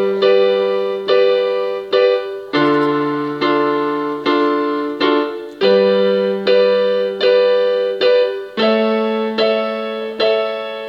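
Piano music: slow block chords struck about once every 0.8 s, each ringing on until the next, moving to a new chord every four strikes.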